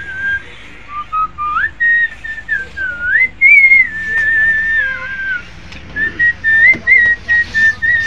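A person whistling a tune: one clear, pure note that slides up and down in short melodic phrases with brief breaks. The loudest, highest phrase comes about three and a half seconds in.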